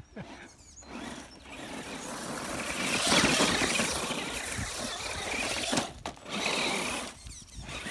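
FTX Carnage electric RC monster truck driving over dirt and loose stones: its motor and tyres get louder to a peak about three seconds in, then fade. After a short break near six seconds it runs again for about a second before dropping away near the end.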